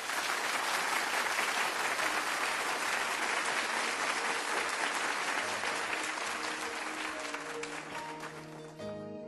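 Studio audience applauding, tapering off near the end as a keyboard begins playing held chords.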